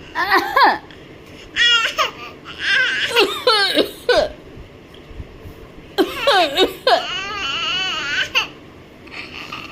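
A baby's high-pitched vocalizing: short squeals and laughs in several bursts with sliding pitch, then a longer wavering, whiny call about two-thirds of the way through.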